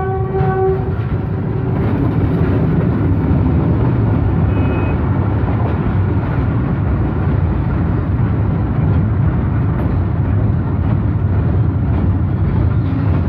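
A freight train's wagons rolling past a level crossing, a loud, steady rumble heard through a vehicle's windshield. The locomotive's horn dies away about half a second in.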